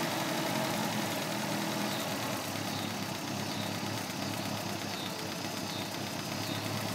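A 1975 Toyota Hilux pickup's four-cylinder engine idling steadily.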